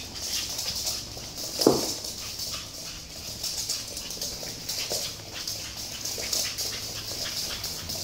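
Pug puppy giving one short, falling yelp about two seconds in, amid quick ticking and scrabbling on a wooden floor and the swish of a floor-cleaning cloth being pushed about.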